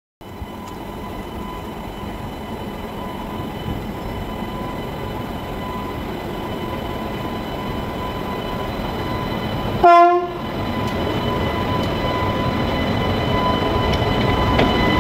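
Indian Railways electric freight locomotive approaching and drawing alongside on the adjacent track, its running noise growing steadily louder, with a faint steady high whine. About ten seconds in comes one short blast of a train horn.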